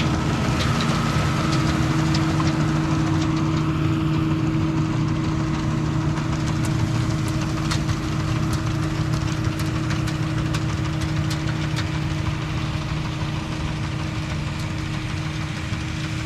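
A motor running steadily with a low hum and scattered faint ticks.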